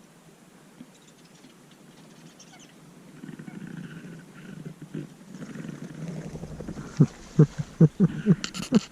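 Raspy duck quacks: a low, rough rumbling builds, then a quick series of about seven loud, short quacks near the end.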